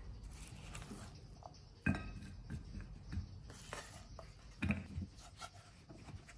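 Silicone spatula scraping sticky jaggery-coated roasted chickpeas out of a nonstick frying pan onto a ceramic plate, with light clinks and knocks of pan and plate; two louder knocks, about two seconds in and just under five seconds in.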